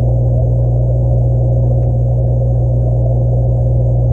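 Steady low electrical hum of aquarium equipment picked up by a camera submerged in the tank, with one faint click about two seconds in.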